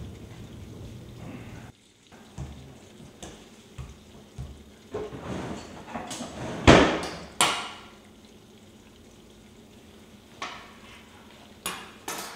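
Oranges rolling across a wooden floor, a low rumble that cuts off just under two seconds in. Then oranges are knocked down onto a kitchen countertop and cut with a knife: a run of knocks and thuds, the loudest a hard thud with a short ring partway through, and a few sharp clicks near the end.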